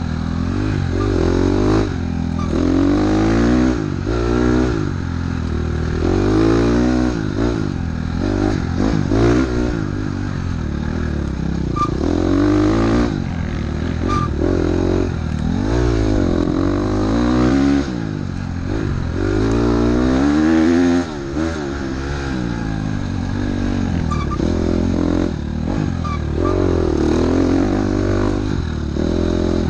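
Dirt bike engine on a trail ride, its revs climbing and falling every second or two as the throttle is worked and gears change, with one short dip about three-quarters of the way in.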